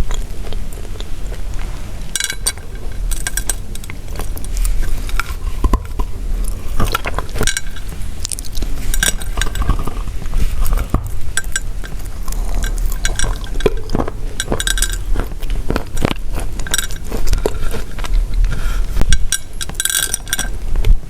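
Pressed chalk tiles being crunched and snapped: irregular dry crackles and sharp brittle snaps, coming in quick clusters throughout.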